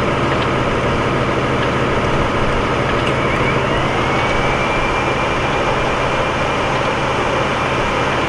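Heavy tow truck's diesel engine running steadily. About three seconds in, a high whine rises and then holds steady.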